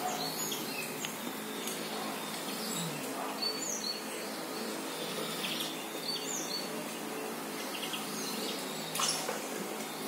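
Small birds giving short, scattered high chirps over a steady background hum, heard through a TV's speakers. A brief click about nine seconds in.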